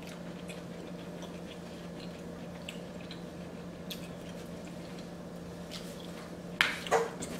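Quiet wet eating sounds from sauce-soaked seafood-boil vegetables: faint squishes and small clicks over a low steady hum, with a louder wet mouth smack twice about six and a half seconds in as a dipped bell pepper strip goes into the mouth.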